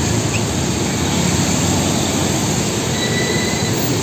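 Heavy tanker trucks driving on a wet road: a steady low engine rumble under even tyre noise, with a thin high squeal about three seconds in.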